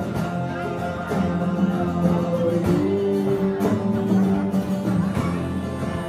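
Live rock band playing: acoustic guitars strummed over electric bass and a drum kit, with a man singing.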